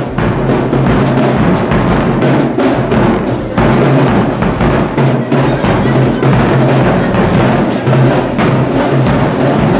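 Marching band playing loudly, with the drums to the fore.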